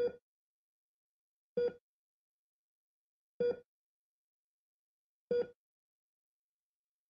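Hospital heart monitor beeping slowly: a short electronic tone four times, about every second and three-quarters, with silence between.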